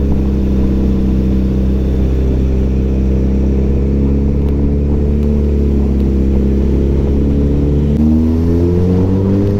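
Suzuki Hayabusa's inline-four engine running at steady revs while riding through traffic, then revving up about eight seconds in as the throttle opens.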